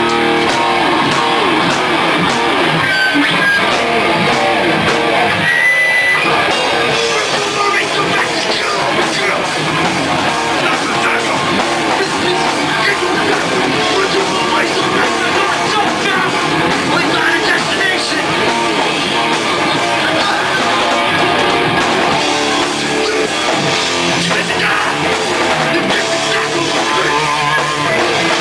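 Hardcore punk band playing live at full volume, with electric guitars to the fore.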